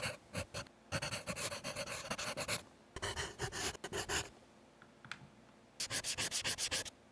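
Scribbling of a marker on paper, in four bursts of quick strokes, as a title is hand-written.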